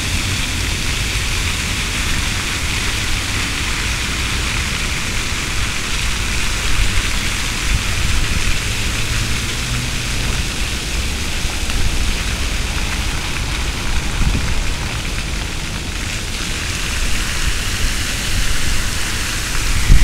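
Fountain jets splashing down steadily into the pool, a continuous hiss of falling water, with wind rumbling on the microphone.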